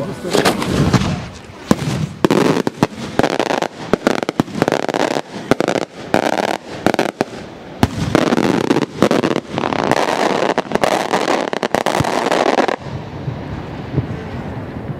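Beraq aerial firework shells bursting in a dense barrage of sharp bangs and crackling reports, cutting off suddenly near the end.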